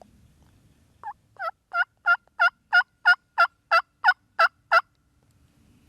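Turkey yelping: a run of about a dozen evenly spaced yelps, about three a second, the first few growing louder and the rest steady.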